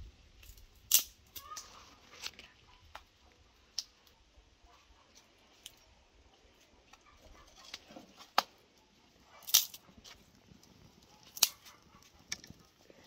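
Dry sticks being laid and broken into a metal barbecue grill: scattered sharp cracks and clatters at irregular intervals, the loudest about a second in and twice more near the end.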